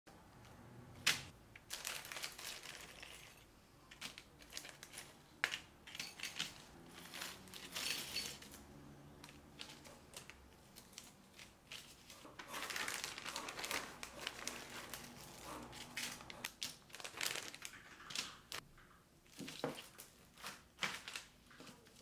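Clear plastic bag of keyboard stabilizer parts crinkling and rustling as it is handled and emptied, with a few sharp clicks of small plastic parts.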